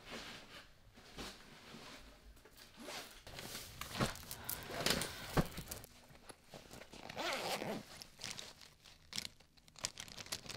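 Rustling of bedding and a zippered fabric pencil case being opened, with small clicks and rattles as a hand rummages through the pens inside.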